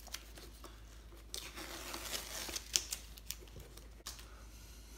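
Blue painter's masking tape being peeled off the edges of watercolour paper: a ripping, crackling noise that swells about a second in and lasts around two seconds, with a few sharp snaps.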